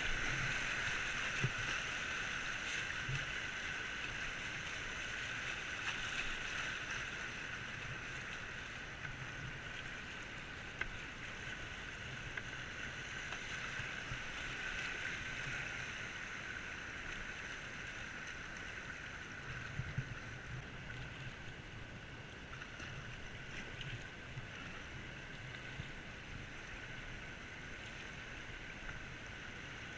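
Whitewater rushing and splashing around a kayak running a river rapid, with occasional paddle splashes. Loudest at the start in the white water, then easing off as the river calms.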